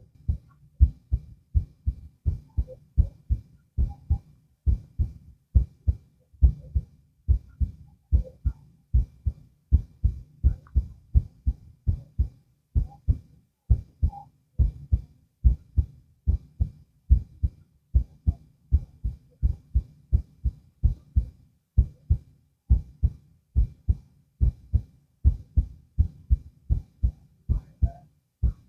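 A human heart beating, heard through a stethoscope on the chest: a steady, even rhythm of low, dull lub-dub pairs.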